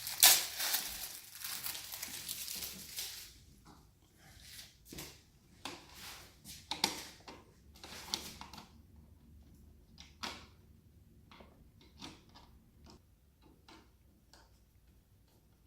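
A plastic light-switch cover plate being handled and fitted over the switch. Rustling for the first few seconds, then a scattered series of small clicks and taps that grow fainter toward the end.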